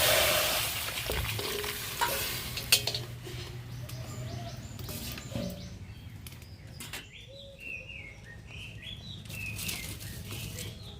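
Kitchen sounds as raw jackfruit is set up to steam: a rushing hiss of water for the first two seconds, then a couple of sharp metal clinks of pots and utensils. Birds chirp repeatedly in the background through the second half.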